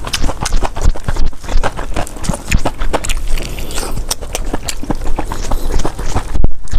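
Close-miked chewing of fire noodles rolled in liangpi cold-skin noodles: many quick, wet mouth clicks and smacks, with a brief pause near the end.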